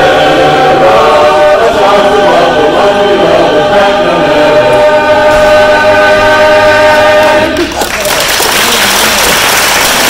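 Men's barbershop chorus singing a cappella, closing on a long held final chord that cuts off about seven and a half seconds in. Audience applause follows.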